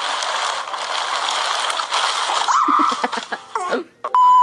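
Steady crinkling rustle of torn wrapping paper, then a few short voice sounds. Near the end comes a loud, steady, high beep.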